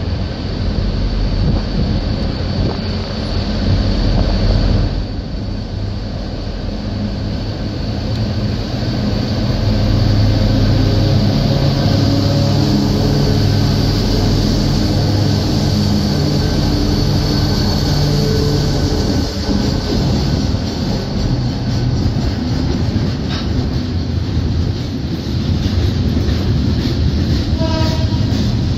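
Two V/Line VL class diesel-electric locomotives haul a freight train past close by. Their engines run loudest about halfway through, then the wagons roll past with wheel clatter and a thin, steady wheel squeal.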